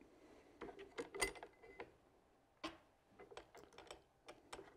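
Faint, scattered clicks and light metallic ticks of a rifle's action screws being fitted by hand into the underside of the stock.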